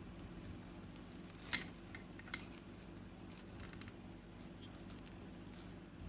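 Small hard toy pieces being handled: a few light clicks and clinks, the sharpest about one and a half seconds in and another just after two seconds, over a faint steady hum.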